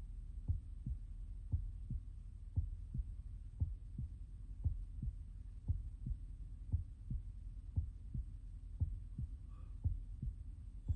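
Heartbeat sound effect: a steady double thump (lub-dub) about once a second, over a low steady hum.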